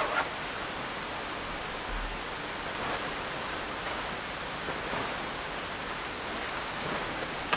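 Steady rush of a fast-flowing mountain stream, swollen by monsoon rain.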